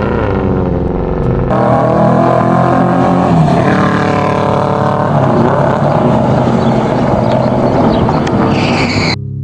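Suzuki Katana 600 sport motorcycle's engine running at high revs, its pitch climbing as the bike accelerates away.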